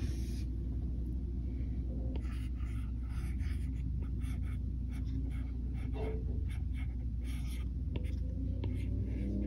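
Stylus tip tapping and sliding on a tablet's glass screen while writing cursive by hand: a run of short, light strokes starting about two seconds in, over a steady low hum.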